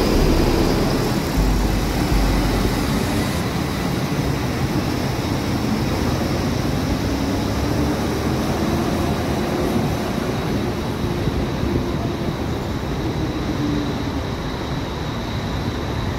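Mercedes-Benz OH 1626 coach's diesel engine pulling away and driving off, its engine note rising slightly and then holding steady while it slowly gets quieter.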